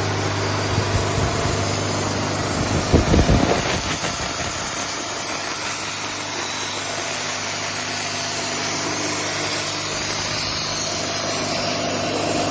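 Nardi Pacific 35 electric three-cylinder high-pressure breathing-air compressor running steadily with a mechanical hum, with a brief burst of irregular knocks about three seconds in, after which the low hum is lighter.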